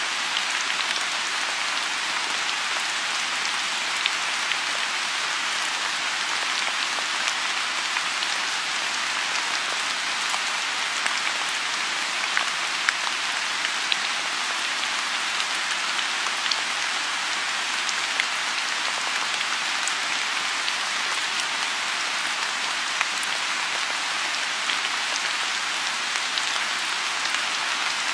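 Steady rain falling on a pond, an even hiss with the ticks of single drops scattered through it.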